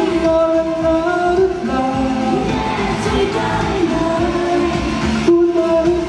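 A male singer performing a Thai pop song live into a handheld microphone, with held sung notes over the accompaniment and a brief break in the music about five seconds in.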